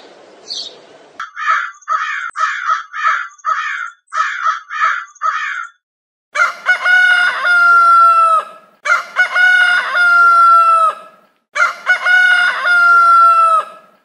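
A rooster crowing three times, each crow a long call that drops in pitch at its end. Before the crows comes a quick run of about ten short, harsh bird calls, after a couple of small chirps.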